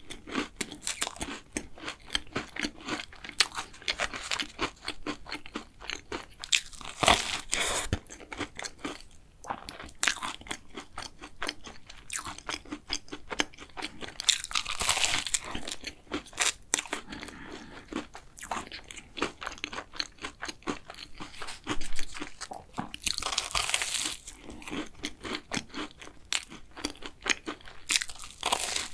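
Close-miked chewing of a custard cookie choux, its crisp cookie-crust topping crunching and crackling between the teeth. A few louder crunches come several seconds apart, at fresh bites.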